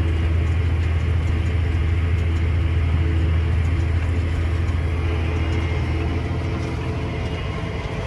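Farm tractor's diesel engine running steadily under load as it pulls a planter, a constant low rumble with a faint steady whine above it, heard from inside the cab.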